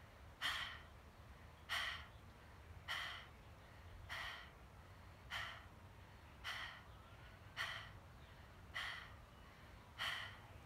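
Panting breathwork with the tongue out, like a dog: sharp exhales through the open mouth, about one every 1.2 seconds, nine in all. The belly is pulled in towards the spine on each exhale.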